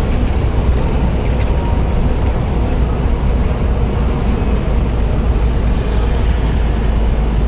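Steady, deep rumble of wind buffeting a phone microphone mixed with road noise from a moving vehicle.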